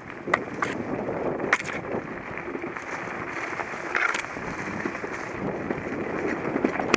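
An action camera carried at speed along a narrow trail through dry grass: steady rustling and wind noise, with a few sharp knocks or clicks, the loudest about a second and a half in and at four seconds.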